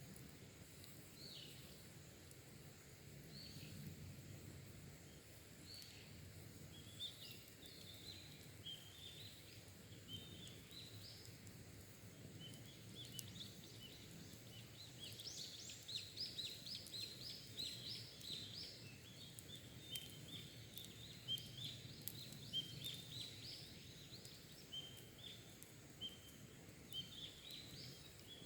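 Faint wild birdsong: many short, high chirping notes in quick series, growing busier about halfway through, with faint small crackles from a campfire's embers.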